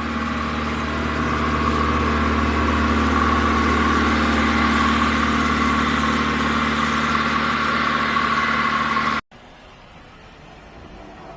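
An engine running steadily, growing slightly louder, then cut off abruptly about nine seconds in, leaving a much quieter background.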